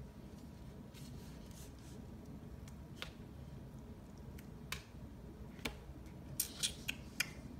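Pages of a sticker book being handled and turned: faint paper rustling with scattered light clicks, then a quick run of several crisp clicks near the end.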